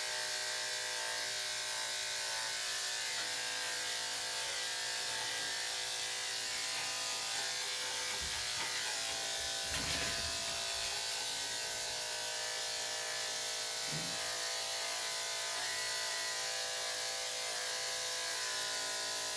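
Electric dog grooming clippers with a number 7 blade running with a steady, even hum while clipping a dog's head. There is a brief low bump about ten seconds in.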